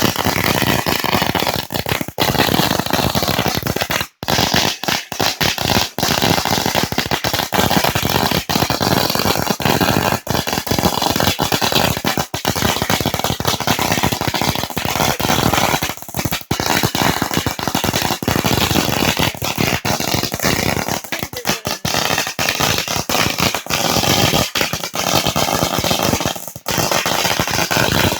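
An 8,000-count string of firecrackers going off in a continuous rapid barrage of bangs, so dense they merge into one unbroken crackling din, with a momentary break about four seconds in.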